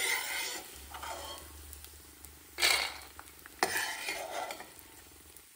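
Puffed gond (edible gum) sizzling in hot ghee in a stainless steel pan while a slotted metal spatula scrapes and stirs it and lifts it out onto a steel plate, with a few scrapes and a sharp metal clink about three and a half seconds in.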